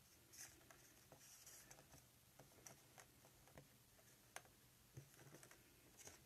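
Near silence broken by scattered faint light taps and rustles as plastic drinking-straw pieces joined with tape are moved and set down on a wooden tabletop, one tap a little clearer about four and a half seconds in.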